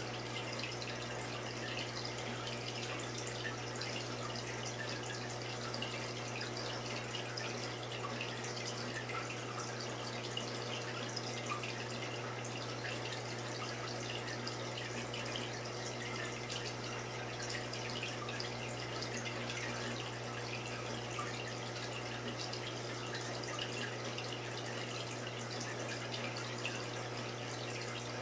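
Saltwater reef aquarium's water circulation: a steady trickle with fine drips, over a constant low hum.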